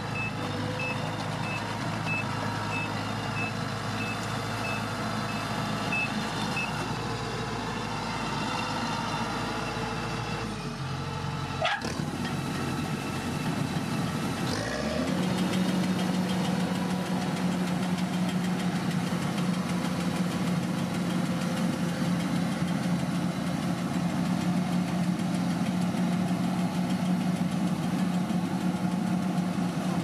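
Kubota DC-108X rice combine harvester running steadily, its engine humming, with a regular high electronic beep about twice a second for the first several seconds. There is a short click near the middle, and after it a steadier, stronger engine hum takes over.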